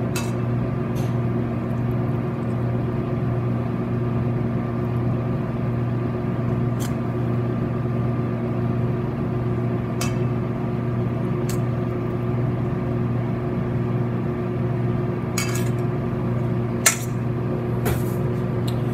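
Steady machine hum from kitchen equipment, with a few light clinks of wooden chopsticks against a stainless steel mixing bowl and a sharper knock near the end.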